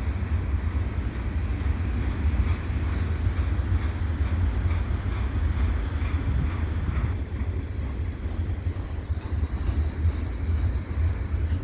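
Slow-moving freight train's cars rolling past with a steady low rumble, with wind noise on the microphone.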